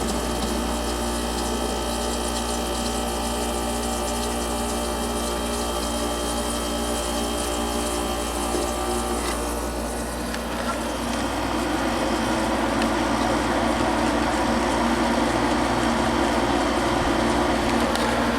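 A 1993 Kenmore 6,000 BTU room air conditioner running, its rotary compressor humming under the loud rush of its evaporator fan. About ten seconds in, the hum tones fade and a louder, even rush of air takes over.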